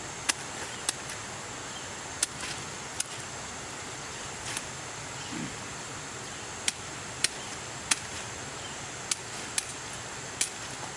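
About a dozen sharp clicks or snaps at uneven intervals, a second or so apart. Behind them runs a steady high-pitched insect drone.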